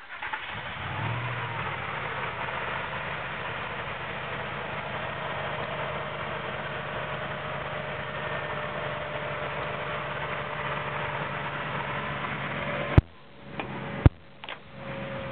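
2000 Ford Expedition's V8 engine idling steadily with the hood open. Near the end come two sharp bangs about a second apart as the hood is shut, after which the engine sounds lower.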